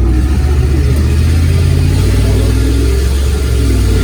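Chevy 350 (5.7 L) small-block gas V8 of a 1990 Silverado K2500 running with a steady, deep low rumble.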